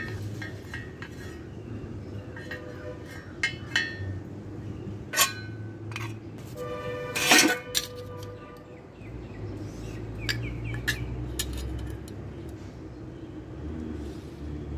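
Light metallic clinks and taps as steel pieces, a steel ruler and a steel square are handled and set down on a concrete step, with one loud ringing clink about seven seconds in.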